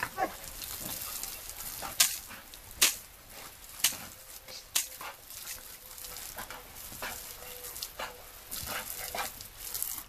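Garden hose spray hissing and spattering on grass and on a Rottweiler puppy as it bites at the jet. Several sharp snaps stand out in the first five seconds.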